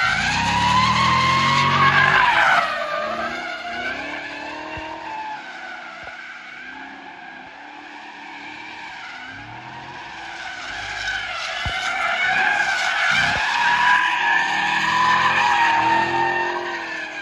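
Chevrolet Camaro SS 1LE's 6.2-litre V8 revving hard while the car drifts, its rear tyres squealing in a long, wavering screech. Loud at first, it fades as the car slides away, then swells again as the car sweeps back close by, and dies down near the end.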